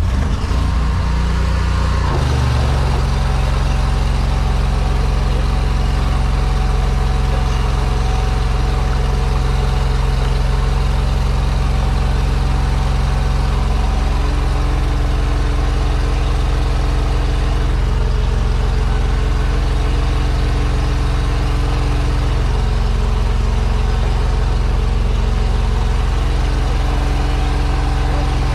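Engine-driven high-pressure drain jetter running steadily as it blasts water through a blocked sewer line. Its engine note shifts and settles about two seconds in, then holds even.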